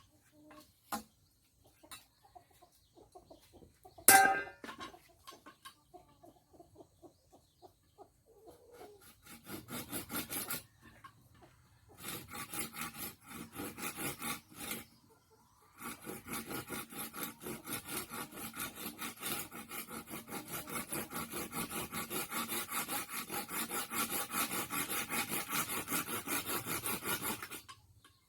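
Rapid, even rasping strokes of a file on a work tool, going in runs with short pauses, after a few light clicks and one sharp knock.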